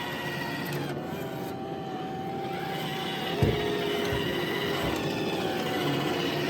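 iRobot Roomba i1+ robot vacuum running, a steady motor whine with several held tones over the hum of its suction and brushes, and a single thump about three and a half seconds in.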